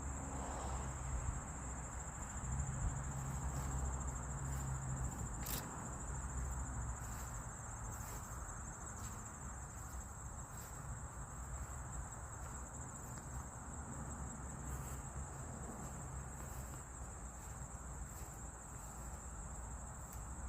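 Insects trilling in a steady, unbroken high chorus, over a low rumble.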